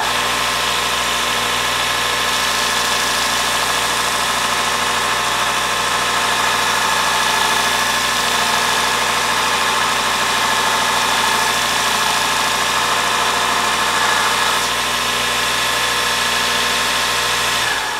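Sorby ProEdge belt sharpener running, its abrasive belt grinding the bevel of a steel spindle roughing gouge rolled against it in the jig: a steady motor hum under a loud grinding hiss.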